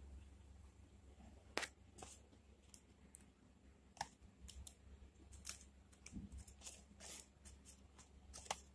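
Near silence: a low steady room hum with faint, irregular clicks and ticks, a few sharper ones about one and a half seconds in, at four seconds and near the end.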